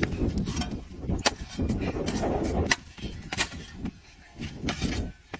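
Pickaxes striking hard, dried mud in a series of sharp impacts over a low rumbling noise. The rumble drops away about halfway through.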